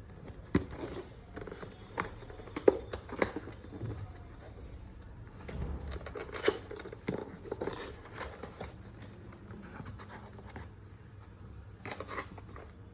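Handling noise at close range: scattered, irregular clicks and knocks with rustling and scraping, loudest about a third of the way in and again near the middle.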